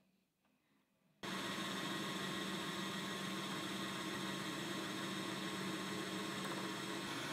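Metal lathe running steadily during a test cut on a bar supported by a live center: an even hiss with a steady hum. It starts abruptly a little over a second in.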